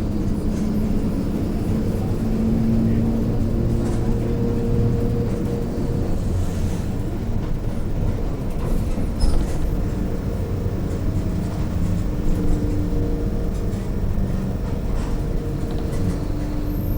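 Mercedes-Benz OF-1721 bus under way: a steady low rumble from the drivetrain, with humming tones that shift in pitch. The hum is a growl from the differential. A few brief knocks come through.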